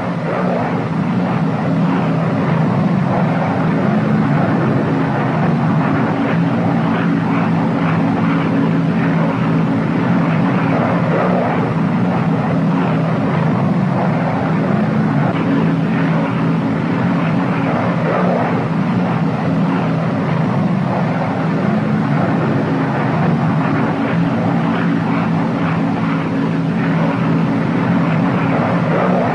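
Twin Pratt & Whitney R-2800 radial piston engines of a Northrop P-61 Black Widow droning steadily in flight: a low, even drone with a rough hiss over it.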